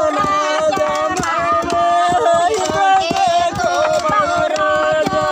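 Several voices singing a held, wavering chant together over the quick, uneven knocking of long wooden pestles striking a mortar. The grain being pounded is fried rice paddy, crushed into flattened rice flakes (emping).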